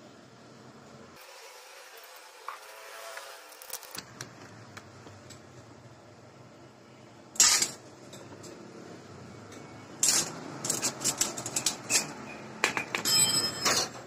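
Small metal starter-motor parts clicking and rattling as they are handled: one sharp click about seven seconds in, then a run of quick clicks and rattles over the last four seconds.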